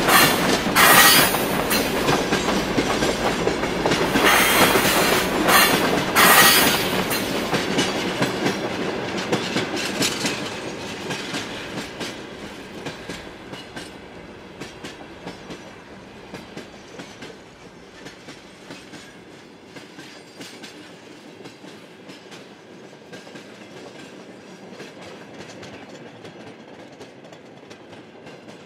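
A train crossing a railway bridge: wheels clattering over the rail joints, loud at first, then fading away over about ten seconds into a faint, continuing clatter.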